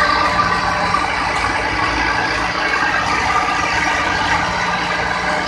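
Preet 90 hp tractor running steadily while powering an Orkel silage baler, the engine and baler machinery together making a continuous mechanical din with a steady high whine.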